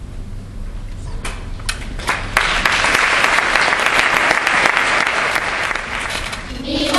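Audience applauding at the end of a choir's song: a few scattered claps at first, swelling into full applause about two seconds in, then easing off near the end.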